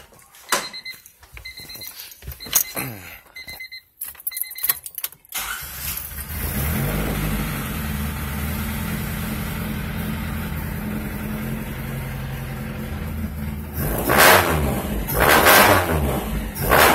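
Honda Civic's engine cranking and catching about five seconds in, after a few clicks and a repeating electronic warning chime from the car, then idling steadily. Near the end it is revved in several short blips.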